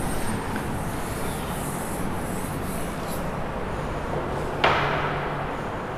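Steady background room noise with a faint hum, broken by a single sharp knock a little over four and a half seconds in that dies away within about half a second.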